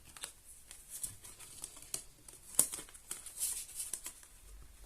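Tarot cards being handled on a table: light taps and papery swishes as cards slide and are set down, with one sharper tap about two and a half seconds in.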